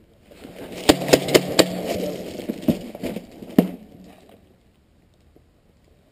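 KJWorks M9A1 CO2 gas-blowback airsoft pistol firing inside a concrete culvert shaft: four quick sharp shots about a second in, then two more spaced about a second apart, over a rushing noise that lasts about four seconds.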